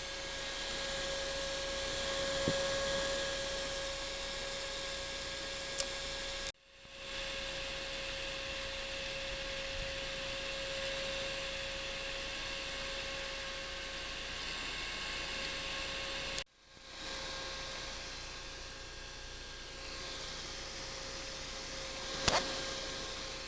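Small electric fan inside a Toyota Alphard headlight running with a steady whine over a hiss. The abnormal noise sounds like a wobbling shaft, a sign that the fan is faulty and needs replacing. The sound cuts off twice, fades back in, and there is a sharp click near the end.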